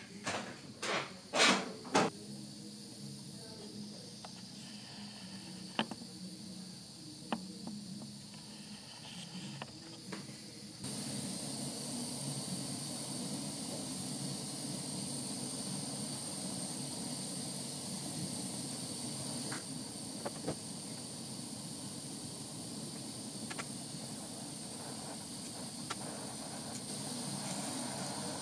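Handheld gas torch burning with a steady hiss. A few loud bursts come in the first two seconds, and the hiss grows louder about eleven seconds in, with a few faint clicks scattered through.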